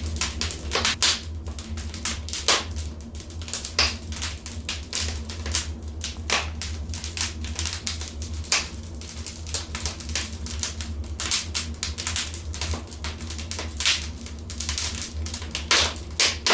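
Wood fire crackling in a fireplace: a dense, irregular run of small snaps and ticks with a louder pop every second or so, over a steady low rumble.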